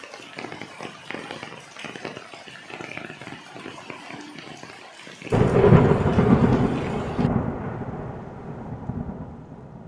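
Rain falling steadily, drops pattering on broad wet pothos leaves. About five seconds in, a loud clap of thunder breaks in suddenly and rumbles away over the following seconds.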